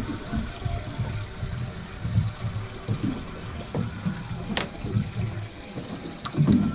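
Water sloshing and trickling around a fishing boat, with an uneven low rumble and a few light clicks near the end.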